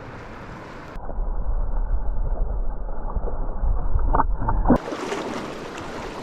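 Running stream water, interrupted for about four seconds by a louder, muffled low rumble, like wind buffeting or handling noise on the microphone, with a couple of short knocks just before it cuts back to the stream.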